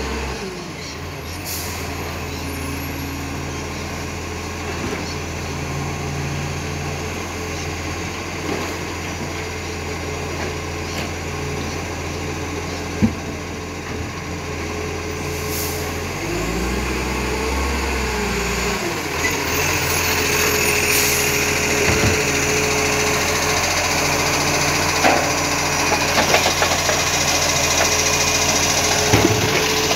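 Diesel engine of an Iveco ACCO garbage truck running steadily and growing louder as the truck draws near, with a short air-brake hiss about halfway through as it pulls up. In the last third the hydraulic whine of the Superior Pak side-loader arm joins in, with a few knocks as the arm grabs and tips a wheelie bin.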